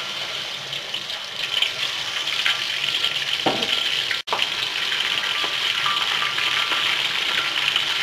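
Blackfin scad (ikan selar papan) deep-frying in hot oil in a wok: a steady, loud sizzle of bubbling, spitting oil, with a momentary dropout about four seconds in.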